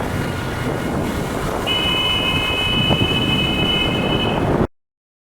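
Wind buffeting the microphone over road and engine noise on a moving motorcycle. A steady high-pitched horn sounds for about three seconds from nearly two seconds in, and the sound cuts off abruptly near the end.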